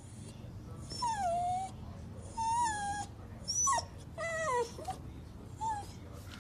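Dachshund whining: five short, high-pitched whines about a second apart, most sliding down in pitch.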